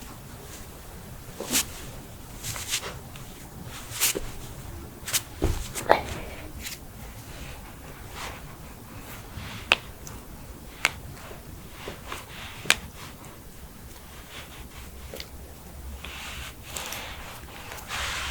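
Human joints being cracked: a series of sharp, separate pops, about a dozen in all, with rustling near the end.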